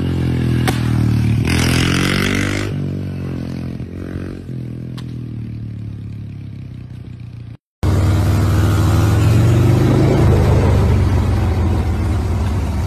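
A small dirt bike's engine running as it rides through standing water with a short splash, then fading as it moves off. After a cut, another small dirt bike's engine comes in louder and revs up.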